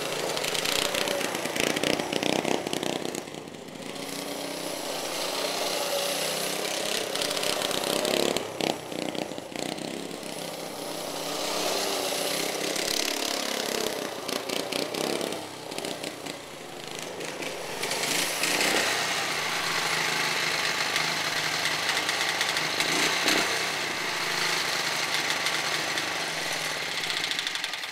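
1970 Snapper riding mower's 4 hp single-cylinder engine running continuously, rising and falling in loudness as it drives.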